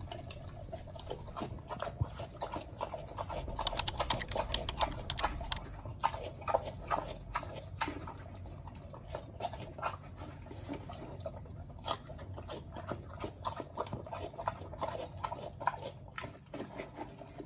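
Pet pig eating chopped vegetables from a plastic bowl: continual chewing, heard as a run of quick, irregular clicks.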